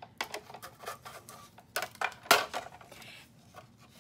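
Sizzix Big Shot die-cutting machine being hand-cranked, running a stack of cutting plates with a metal die and cardstock through its rollers: a series of hard plastic clicks and knocks, the loudest about two seconds in.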